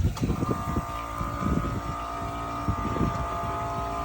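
A motor running steadily, with a whine of several even tones held at a constant pitch over a low rumble.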